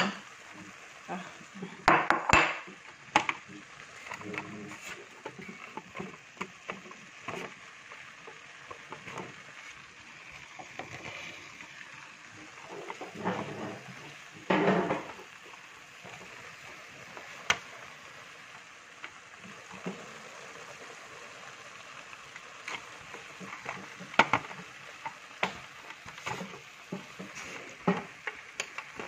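Potato-leaf soup simmering in a metal pot with a steady bubbling hiss, while a utensil stirs it and knocks against the pot now and then, loudest a couple of seconds in and again midway.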